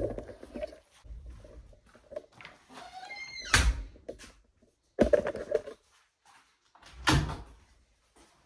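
Handling noises in a small room: three sharp knocks or thumps, the first and loudest about three and a half seconds in after a short rising squeak, the others at about five and seven seconds.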